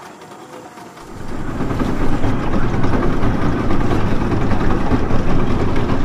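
A motorboat's engine running steadily, coming up loud about a second in.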